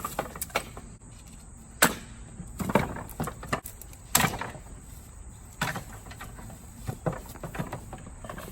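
Sledgehammer striking hard wood, a series of separate heavy blows. The loudest land about two and four seconds in, with smaller knocks between them.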